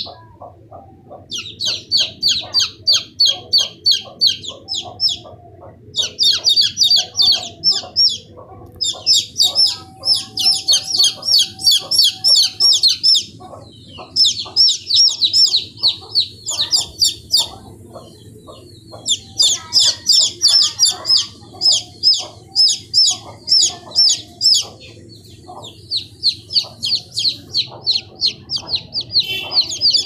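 A group of baby chicks peeping nonstop: rapid, high-pitched cheeps from several chicks at once, in long runs broken by brief pauses.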